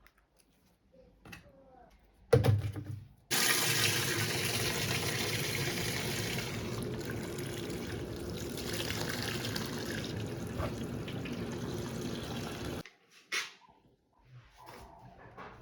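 Kitchen tap running into a sink for about nine seconds, turned on just after a knock and shut off abruptly, with a few small kitchen clatters after it.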